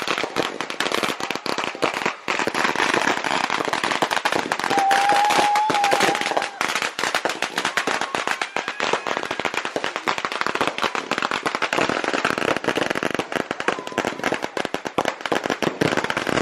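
Firecrackers going off in a dense, rapid crackle of pops that never lets up, with a brief whistle about five seconds in.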